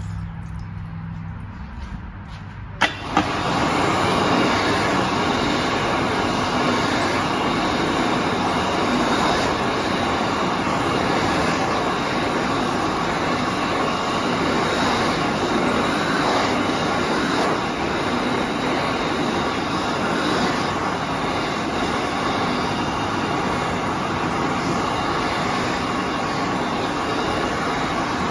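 Push-button warm-air hand dryer, a 2009 Dayton World Dryer Model A: two sharp clicks about three seconds in as it starts, then its fan motor runs steadily with a loud, even rush of air.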